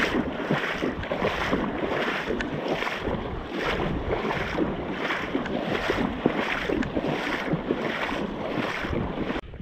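Wading through shallow seawater: a swish of water about twice a second with each stride, over a low rumble of wind on the microphone. The sound cuts off abruptly near the end.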